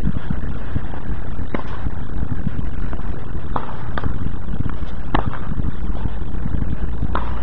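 Tennis balls struck by rackets and bouncing on a hard court during a rally: sharp pops about one to two seconds apart, five in all, over a steady rushing background noise.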